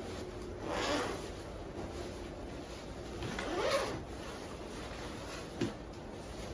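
Two brief swishing sounds, like a zip or fabric being drawn, a couple of seconds apart, then a single light knock.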